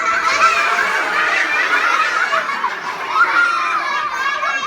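A room full of young children laughing and shouting together, many high voices overlapping.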